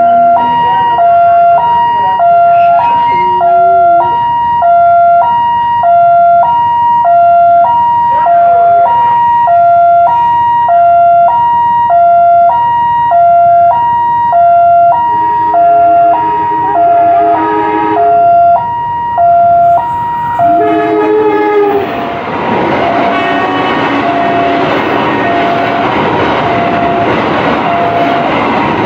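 Indonesian level-crossing warning alarm sounding, an electronic two-tone high-low chime repeating about once a second. About halfway through, the approaching train's horn sounds, one long blast and then a short one. Near the end, the Logawa passenger train passes with a steady rumble of wheels on rails, and the alarm carries on beneath it.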